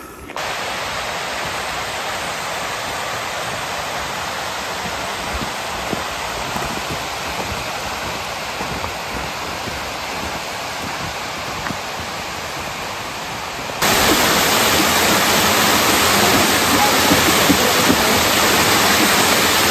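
Mountain waterfall, water rushing steadily, with no other sound over it; it turns suddenly louder about fourteen seconds in.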